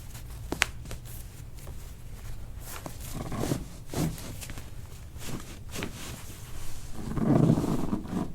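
Handling sounds during a chiropractic adjustment: a few sharp clicks and taps, then soft shifting and rustling of the patient on the treatment table. The loudest of these is a longer noisy burst near the end.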